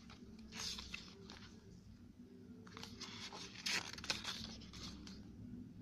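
Glossy photobook pages being turned by hand, rustling and flapping: a short rustle about half a second in, then a longer flurry of page-turning about three seconds in.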